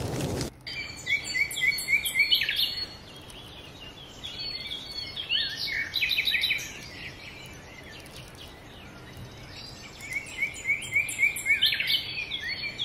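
Recorded birdsong laid in as a background track: small birds chirping. Runs of quick rising chirps come about a second in and again near the end, with scattered calls between.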